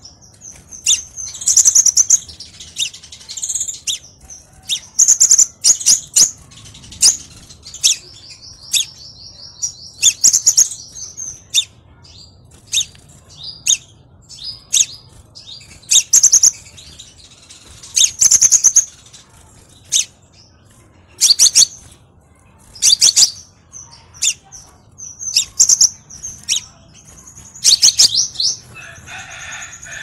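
Small songbirds calling: loud, sharp, high chirps repeating every second or two, with a few short rapid trills mixed in, over a faint low hum.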